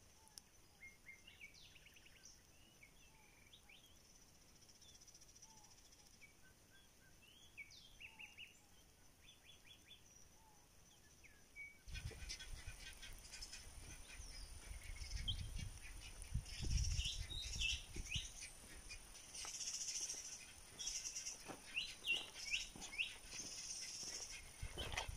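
Wild birds chirping and calling over a quiet outdoor background. About halfway through, the sound gets louder, with a low rumble and livelier bird calls, and footsteps come closer near the end.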